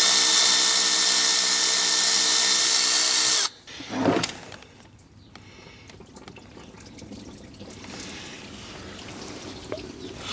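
A cordless electric ratchet's motor runs at a steady speed while it backs out a thermostat housing bolt, then stops suddenly about three and a half seconds in. A short rattle follows, then faint handling sounds.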